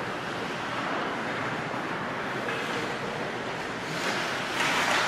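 Steady rushing din of an ice hockey rink during play, swelling near the end.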